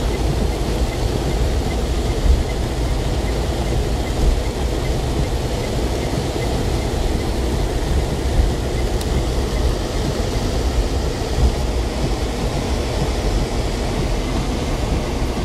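Steady low rumble and hiss of a car driving along a rain-soaked, flooded road, heard from inside the cabin, with a few brief thumps.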